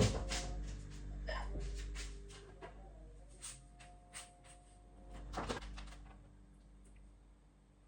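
Kitchen handling sounds: a string of clicks and knocks from kitchenware, cupboards and utensils being moved about. The loudest knock comes right at the start and another cluster about five seconds in, with a faint ringing tone in between.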